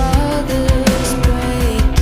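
Background rock music with distorted guitar and a steady drum beat.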